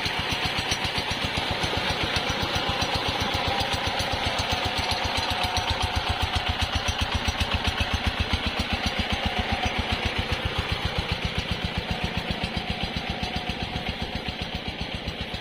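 Diesel engine of a paddy-irrigation water pump running steadily with an even, rapid beat of firing strokes.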